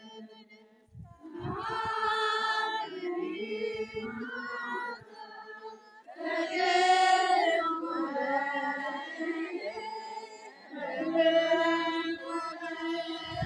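Voices singing a chant in three long phrases with short breaks between them.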